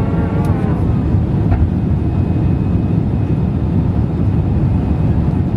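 Steady, loud rumble of an Airbus A320 airliner heard from inside the passenger cabin.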